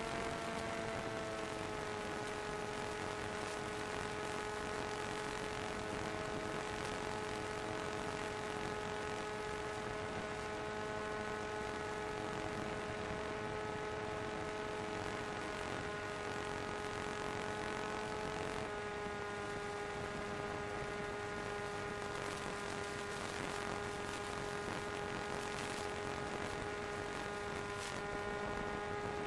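Electric motor and propeller of an FPV model plane running at a steady throttle, a constant whine over a rush of air. Its pitch eases down slightly near the start and shifts a little about two-thirds of the way through.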